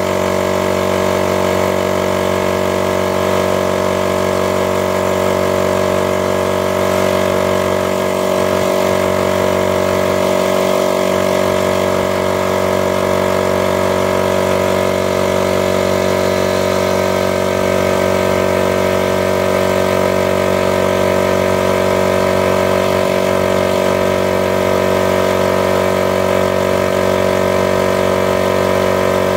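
Superworks direct-drive air compressor with a 2.5 hp electric motor running continuously as it pumps its 40-litre tank up from empty. A loud, steady mechanical drone with many even tones.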